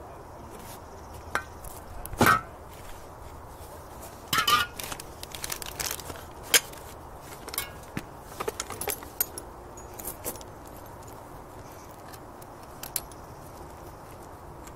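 Scattered metallic clinks and knocks of parts and tools being handled during work on an outboard motor's water pump housing, the sharpest about two, four and a half and six and a half seconds in.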